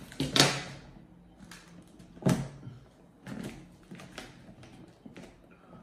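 Packing tape being pulled and peeled off a cardboard box in several short noisy strips, the loudest about half a second in and another about two seconds in.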